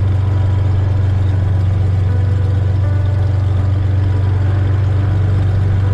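Cessna 182S's fuel-injected six-cylinder Lycoming IO-540 engine and propeller running with a steady, unchanging low drone, picked up through the headset intercom feed.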